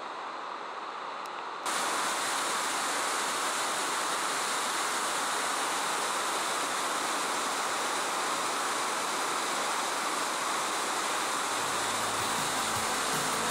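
Large waterfall rushing steadily as it cascades down a sloping rock slab, jumping louder about two seconds in. Low notes of background music come in near the end.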